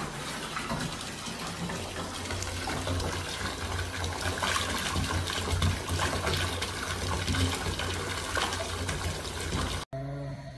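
Bathtub tap running, water pouring steadily from the spout and splashing into the tub. It cuts off abruptly near the end.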